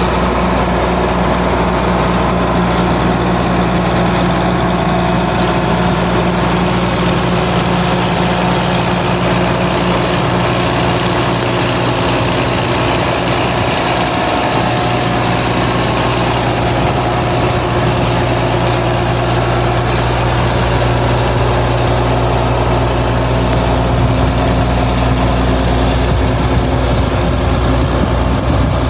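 Case IH combine harvester's diesel engine running steadily at idle, with a steady high-pitched whine over the engine note.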